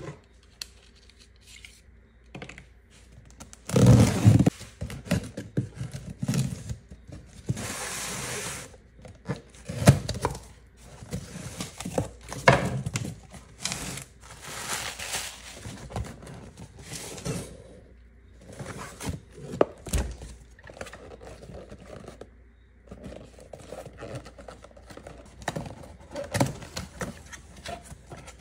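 Cardboard shipping box being opened by hand: tearing, scraping and rustling of cardboard flaps and plastic packaging, with a few knocks as the box is handled.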